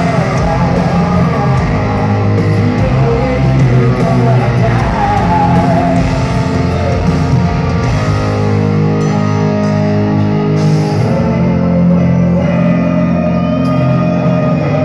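Rock band playing live, recorded from the audience in an arena: heavy distorted electric guitars, bass and drums, with singing.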